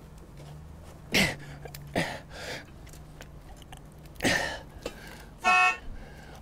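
Bolt cutters being squeezed hard onto a Litelok Gold composite bike lock. There are three short, sharp bursts, about a second, two seconds and four seconds in, and then a brief honk-like tone about five and a half seconds in.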